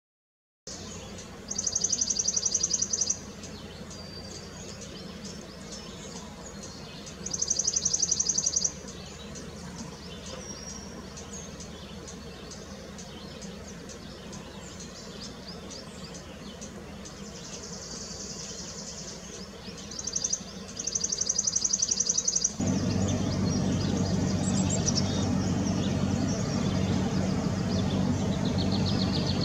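Outdoor field ambience with a songbird singing a high, fast trill about a second and a half long, repeated four times. About three-quarters of the way through, the sound cuts to a louder, steady low rumble.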